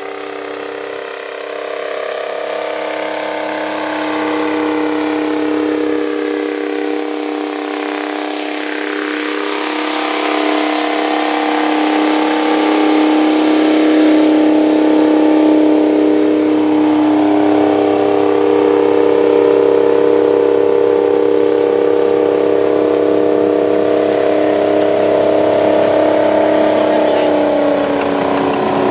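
Rite 750 Earthquake four-wheel-drive tractor's diesel engine working under load as it pulls a 20-bottom moldboard plow. It is a steady drone that grows louder over the first dozen seconds, its pitch wavering slightly.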